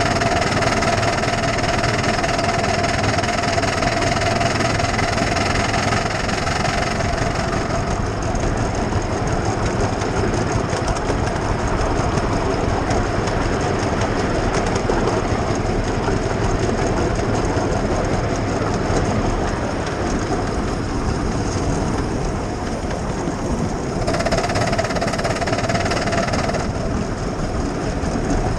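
A 7¼ inch gauge miniature steam locomotive running steadily along the track, a continuous rumble and clatter of the engine and wheels on the rails. A steady tone sounds over it for the first several seconds and again for a few seconds near the end.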